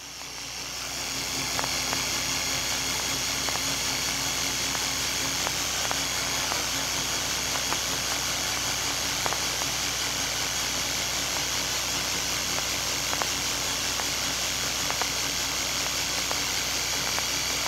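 Film projector sound effect: a steady mechanical whir with hiss, a low hum and scattered faint clicks. It fades in over the first second or so.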